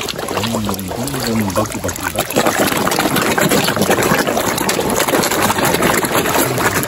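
A dense crowd of carp splashing and churning the water surface as they jostle for food. The splashing thickens and grows louder about two seconds in.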